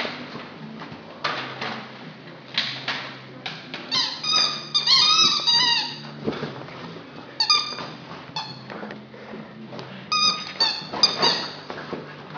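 Squeaky dog toy squeaking in short bursts as an Irish Setter puppy bites and chews it, several squeaks in quick succession about four to six seconds in, with clicks and knocks of chewing and handling between them.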